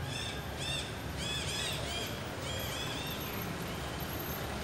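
A bird calling in a quick series of short, high notes, each rising then falling in pitch, coming in little clusters and stopping about three seconds in.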